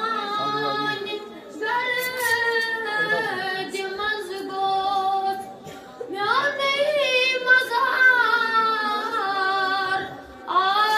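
A boy singing a Kashmiri naat (devotional praise song) solo in long, held, ornamented phrases, with short pauses for breath between them.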